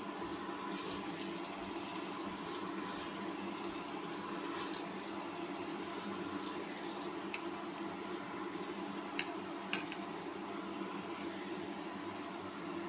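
Chicken pakora balls deep-frying in hot vegetable oil: a steady sizzle with scattered sharp pops and spits as more balls are dropped in.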